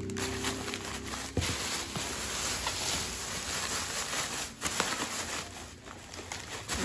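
Plastic bags crinkling and food packages and bottles shifting and knocking as they are packed down inside a plastic cooler box, with a few sharper knocks.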